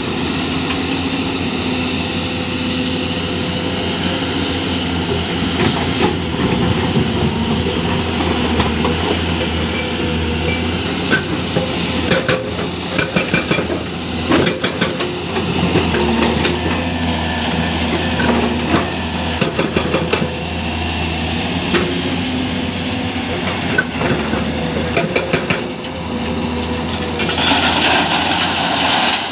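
Hydraulic excavator's diesel engine running steadily under load, with irregular clanks and knocks scattered over it, bunched together about halfway through.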